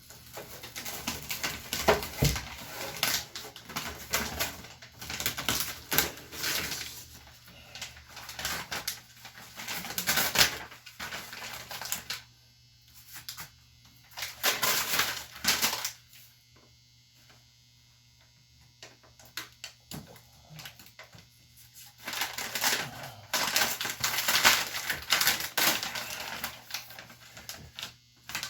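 Peel-and-stick backsplash tiles being handled and pressed onto the wall: bursts of crinkling, rustling and light clicking, with a couple of quiet pauses partway through.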